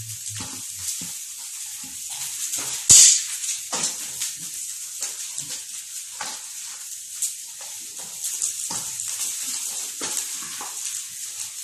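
Hands kneading and squeezing damp fermented-corn dough in a stainless steel bowl, with scattered short knocks and scrapes against the bowl and one louder knock about three seconds in. A steady high hiss runs underneath.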